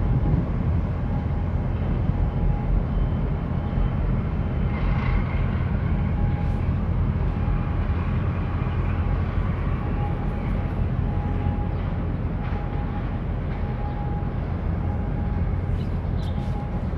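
Steady low rumble of a large cargo ship and its harbour tug passing close by under way, mixed with wind buffeting the microphone.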